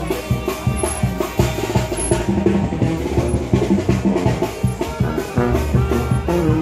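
Music with drums and a steady beat.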